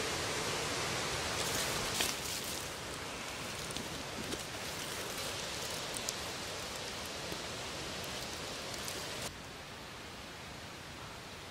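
Dry leaves rustling and crackling as a tent stake is worked into leaf-covered forest ground, over a steady rushing hiss. The sound drops to a quieter hiss near the end.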